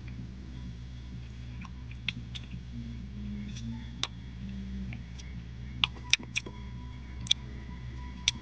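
Small sharp clicks and smacks of eating with a plastic spoon, scattered and coming more often after about six seconds, over a low steady hum.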